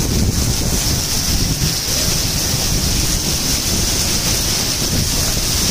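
Heavy rain mixed with hail pouring down onto a wet street, a steady loud hiss, with wind buffeting the microphone into a low rumble.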